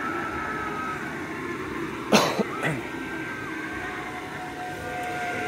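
Steady whir of an airblown inflatable's blower fan, with a person coughing sharply about two seconds in, followed by two smaller coughs.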